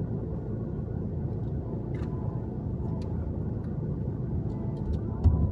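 Steady low rumble of a vehicle running, with a few faint clicks and a short thump near the end.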